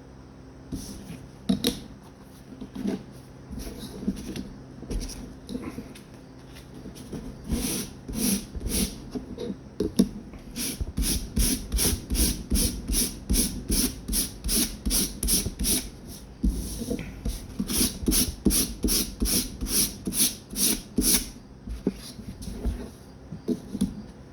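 Handle scales rubbed back and forth by hand on coarse 60-grit sandpaper, scratching up the surface. A few scattered strokes at first, then a steady rhythm of about two to three strokes a second from about halfway through, stopping shortly before the end.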